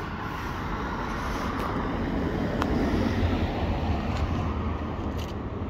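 Scania L94UB single-decker bus standing with its diesel engine idling: a steady low rumble that swells a little in the middle, with a single sharp click partway through.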